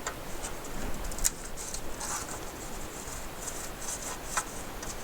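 Small clicks and scrapes of a disassembled floppy drive's parts and cables being handled, with a sharper click about a second in and another near the end.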